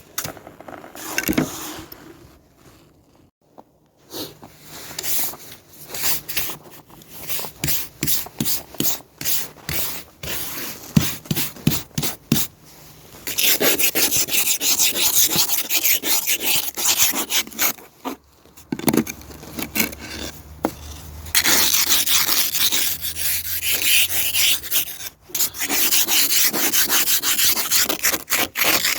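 Snow and ice being scraped and brushed off a car by hand: a run of short separate strokes, then long stretches of fast continuous scraping.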